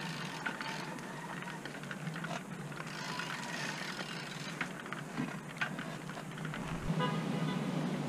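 Wind rushing over a bicycle-mounted camera, with the bicycle rattling and clicking as it rolls along a paved path.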